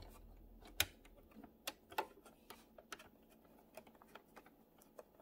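Faint, irregular clicks and taps from fabric being lined up under a sewing machine's presser foot, with no steady run of stitching. A low hum stops about a second in.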